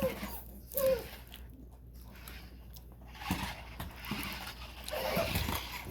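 An infant's short vocal sounds, about a second in and again near the end, amid scattered clicks and rustling.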